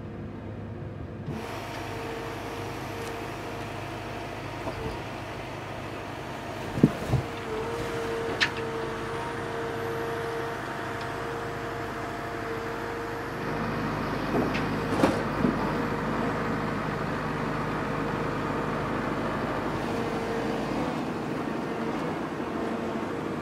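Komatsu 835 forwarder's diesel engine running steadily while the hydraulic crane works a load of logs. A few sharp knocks come about seven seconds in and again around fifteen seconds, and the engine's low note shifts about halfway through.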